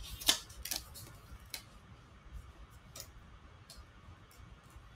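Hands handling a paper note on a desk: a cluster of clicks and rustles in the first second or so, then a few scattered light ticks.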